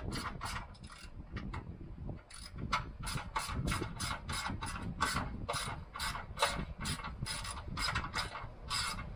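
Hand socket ratchet clicking in quick, even strokes, about four clicks a second, as a bolt is run up; it stops briefly about two seconds in, then carries on.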